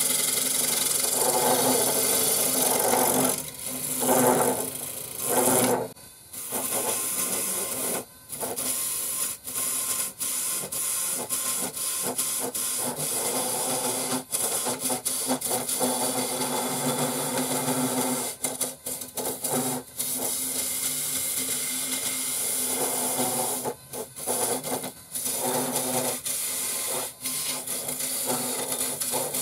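RIKON 70-1218VS midi wood lathe running with a steady hum while a carbide-tipped turning tool cuts the outside of a spinning maple and mahogany bowl blank. The cut makes a rasping scraping noise that swells and fades as the tool is worked along the rest, with a few short breaks.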